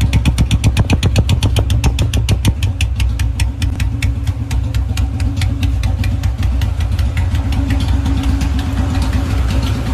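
Royal Enfield Bullet 350 single-cylinder engine idling with an even exhaust thump, about six beats a second, the typical Bullet 'dug dug'. The beat grows less distinct in the last few seconds.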